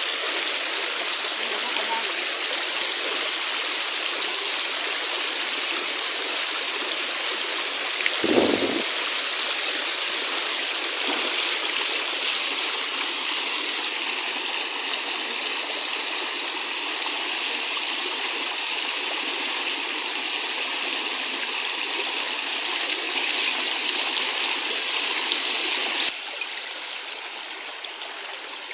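Shallow rocky stream rushing steadily over stones and small rapids, with a brief thump about eight seconds in. The rush of water drops noticeably quieter a few seconds before the end.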